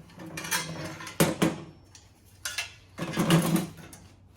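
Steel parts clanking and scraping as they are handled and set down: a couple of sharp knocks about a second in, then a longer, louder clatter near the three-second mark.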